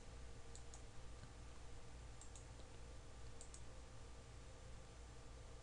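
Faint computer mouse clicks, three quick pairs spread over a few seconds, over a low steady hum.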